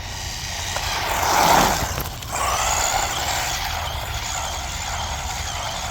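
Brushed electric motor of a JJRC Rigid C8805 1/14-scale RC truck whining, its pitch rising and falling as it speeds up and slows, over a steady hiss; loudest about a second and a half in.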